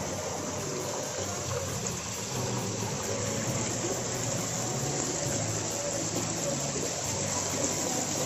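Small rock waterfall splashing steadily into a koi pond.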